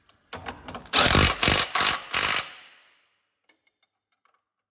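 Impact wrench run in four short, loud bursts, about a second and a half in all, snugging a 15 mm lower control arm bolt. A few light clicks of tool on metal come just before.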